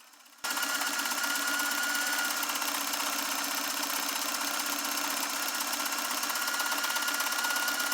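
SINGER Heavy Duty 4411 electric sewing machine running at a steady speed, stitching a zigzag seam through doubled hair wefts: a rapid needle chatter under a steady motor whine, starting suddenly about half a second in.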